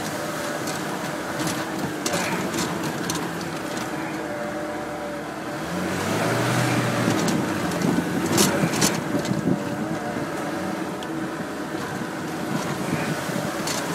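Off-road vehicle's engine running as it drives over a rough, muddy track. It pulls harder about six seconds in, with a few sharp knocks and rattles from the vehicle over the bumps.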